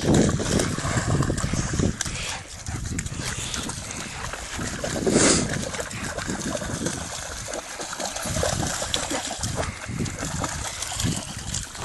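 German shepherd dogs at play: continuous scuffling and rustling noise, with one short loud burst about five seconds in.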